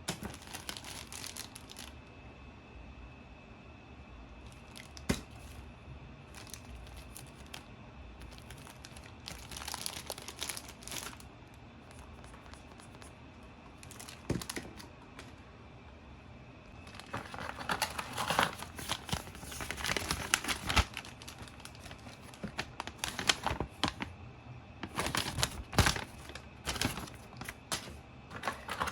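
Packaging being crinkled and torn open by hand: irregular bursts of rustling and tearing, busiest in the second half.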